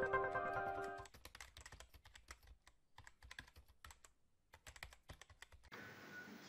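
Intro music with held chord tones stops about a second in, followed by a quick irregular run of computer-keyboard typing clicks, a typing sound effect for on-screen text appearing. Near the end it cuts to faint steady room noise.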